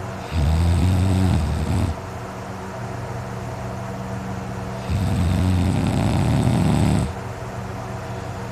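A sleeping man snoring loudly: two long, rasping snores, one near the start and one about two-thirds of the way through, each lasting under two seconds, with a steady low hum in the pauses between them.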